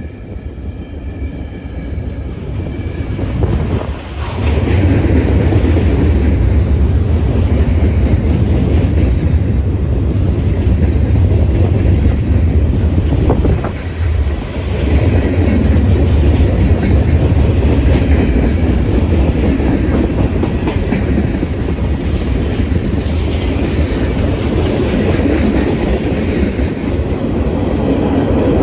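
A train passing close by, its wheels clattering steadily over the rails with a deep rumble. The noise swells over the first few seconds, then stays loud.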